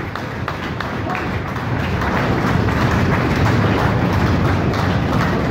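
Crowd applauding and cheering, swelling louder about two seconds in.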